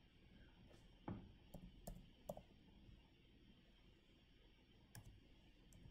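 Near silence: room tone with a few faint clicks from working a computer mouse and keyboard. Four come close together between one and two and a half seconds in, and one more near the end.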